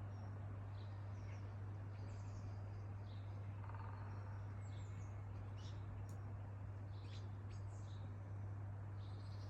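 Small birds chirping in short, scattered high notes and brief calls, over a steady low hum and background noise.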